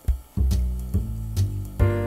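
Instrumental background music with a beat, coming back in a moment after a brief hush.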